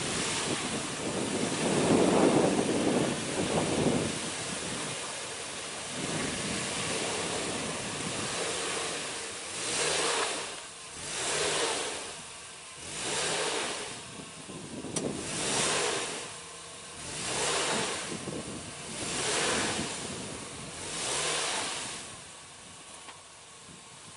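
Off-road vehicle's engine revving as its wheels spin. There is a long loud burst in the first few seconds, then seven even surges of spin about two seconds apart, fading near the end.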